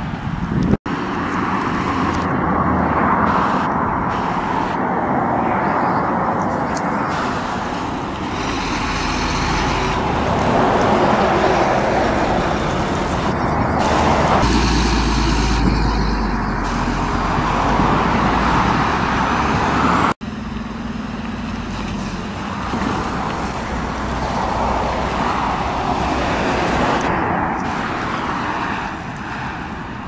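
Fire trucks driving by on a road: engines running over tyre and traffic noise. A heavy low engine rumble swells about halfway through as a truck passes close, and the sound breaks off twice briefly where the recording is cut.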